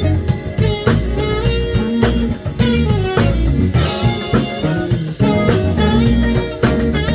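Live jazz band playing an instrumental groove, with drum kit and electric guitar to the fore over a steady beat.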